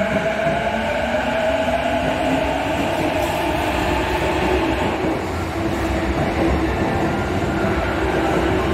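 A Chiyoda Line subway train pulling out of the station. Its motors give a whine that rises in pitch through the first few seconds as it speeds up, over steady wheel-on-rail rumble.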